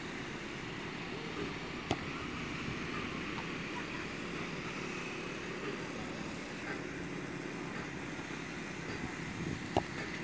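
Steady outdoor background noise with two sharp thumps, one about two seconds in and one near the end; the later one is a football being struck by a boot.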